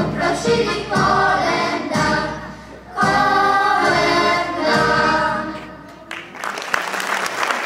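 Choir of women and girls singing the closing phrases of a Polish Christmas carol (kolęda) to piano accordion. The singing stops about six seconds in, and audience applause follows.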